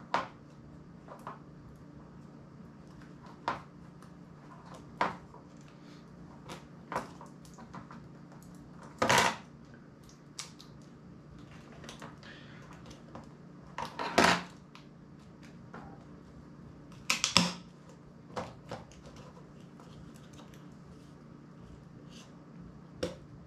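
Scattered clicks, taps and short scrapes of a small screwdriver and pry tool working on a metal-bodied flip phone as it is taken apart, with a few louder knocks spaced several seconds apart.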